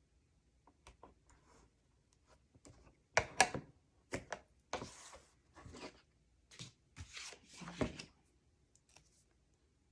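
Paper and card stock being handled while pockets are taped up: a run of short rustles, scrapes and sharp taps, loudest about three seconds in.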